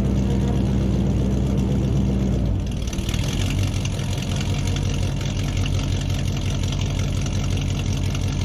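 Engine running with a steady low hum, which about two and a half seconds in changes to a rapid, even low pulsing.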